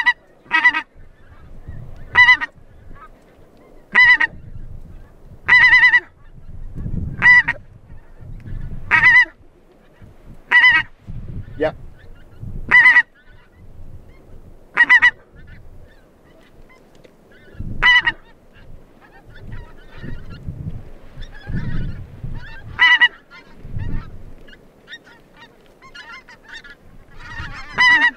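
Pink-footed geese honking: loud single honks about every two seconds for the first half, then fainter, scattered calls. Wind buffets the microphone in low gusts underneath.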